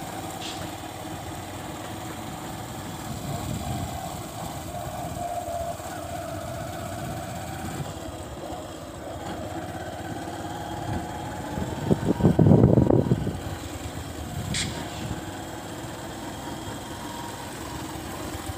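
Motorcycle engine running at low speed as the bike rolls along a dirt track, its tone wavering slightly. About twelve seconds in, a loud low rumble lasts about a second.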